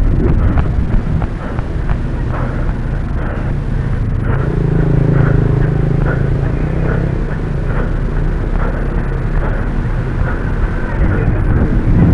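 Wind and handling rumble on a hand-held camera carried by a moving runner, with a regular beat of knocks, about two to three a second, from footfalls. A steady low hum rises for a couple of seconds about halfway through.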